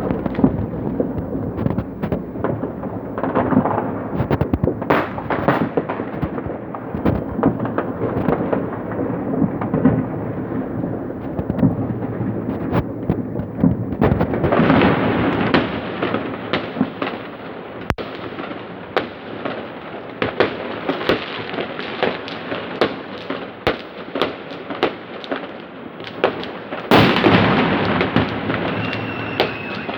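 Many New Year fireworks going off at once: a dense, continuous crackle of bangs and pops, with a louder surge a few seconds before the end.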